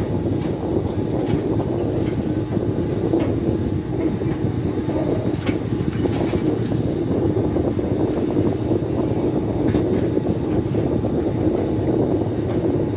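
Industrial sewing machine running steadily, stitching soft leather, with a continuous low mechanical rattle and a few light clicks.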